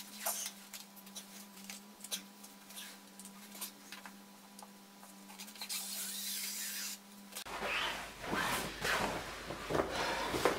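Sail fabric being handled and rolled up on a floor: soft rubbing and rustling of the cloth with scattered light taps. About seven seconds in the rustling becomes suddenly louder and closer as the cloth is lifted and handled near the microphone.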